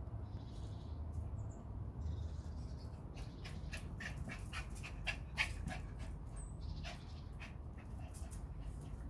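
Schipperkes playing, with a run of short, sharp yaps from about three seconds in until about seven seconds, over a steady low background hum.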